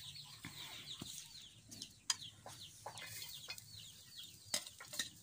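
Birds chirping, a quick steady run of short falling chirps, with a few sharp clicks about two seconds in and again near the end.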